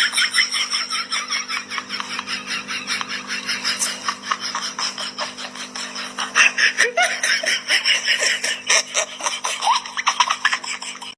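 Laughter running on in quick, short bursts of about four or five a second, over a steady low hum. It cuts off suddenly at the end.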